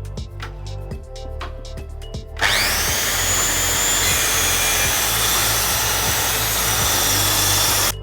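Music with a steady beat, then about two and a half seconds in a Ryobi 1600 W electric circular saw starts up with a rising whine and runs loud and steady while cutting. It cuts off abruptly near the end.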